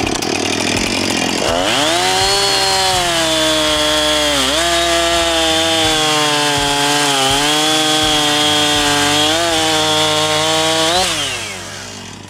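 Husqvarna 455 Rancher two-stroke chainsaw at full throttle, bucking through a log. Its pitch sags a few times as the chain bites under load, and near the end the throttle is released and the engine winds down.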